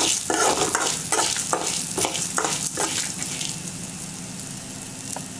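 A steel spoon scrapes around an aluminium kadai in quick repeated strokes, stirring chana dal, urad dal, coriander seeds and dried red chillies as they roast and sizzle in a little oil. About three seconds in the stirring stops, and a softer sizzle carries on, slowly fading.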